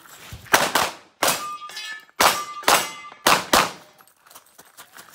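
Competition pistol fire: several shots, mostly in quick pairs, over the first four seconds, with steel targets ringing briefly after some of the hits. The shooting stops near the end.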